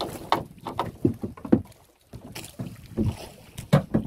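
Waves slapping against the hull of a small wooden outrigger fishing boat: irregular knocks and splashes, about three or four a second, with a brief lull about halfway through. Wind is on the microphone.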